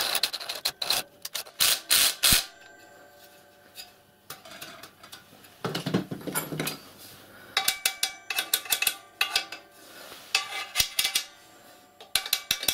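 Metallic clicking and clinking as a mild steel band and worm-drive hose clamp are shifted and worked around a copper boiler shell, some clinks ringing briefly. A cluster of clicks in the first two seconds, a quieter spell, then more clinks through the second half.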